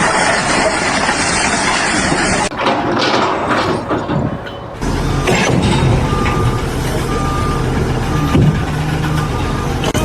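Noisy construction-site sound for the first few seconds. After a cut about halfway in, a heavy vehicle's engine runs steadily while a reversing alarm beeps about once a second.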